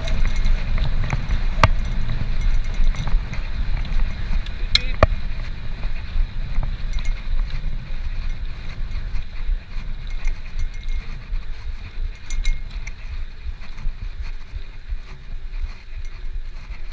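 Bicycle on the move: a steady rumble of road and wind noise, with a few sharp clicks and rattles from the bike. The rumble eases somewhat in the last few seconds.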